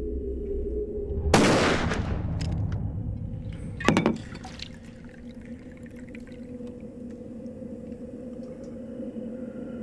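A single revolver shot about a second in, with a tail that dies away over about a second, followed near four seconds by a shorter, sharp second crack. A low steady hum with held tones runs underneath.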